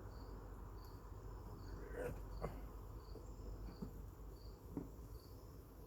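A cricket chirping steadily, one short high chirp about every three-quarters of a second, over a low hum, with a few soft knocks.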